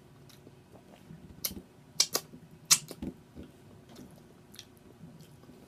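Close-up chewing with a series of wet mouth smacks and clicks, thickest from about one and a half to three and a half seconds in.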